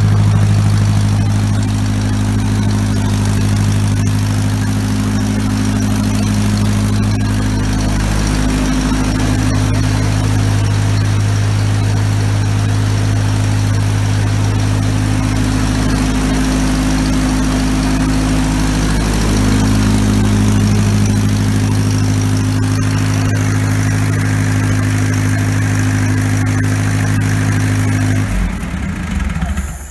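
Freshly rebuilt four-cylinder gasoline engine of a 1956 Ford 640 tractor running steadily on its first test start, with no coolant in the radiator. It is shut off near the end and stops suddenly.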